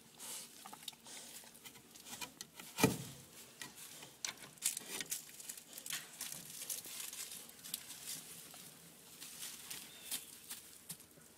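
Two-week-old Great Pyrenees puppies crawling and shuffling in wood shavings: scattered light rustles, scratches and taps, with one sharper knock about three seconds in.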